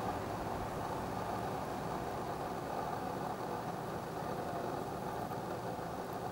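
Steady engine hum with a low rumble, unchanging throughout.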